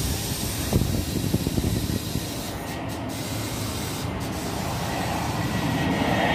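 New York City Subway R32 train: a loud hiss of compressed air starts suddenly, over a low rumble with scattered clanks that grows gradually louder as the train begins to move.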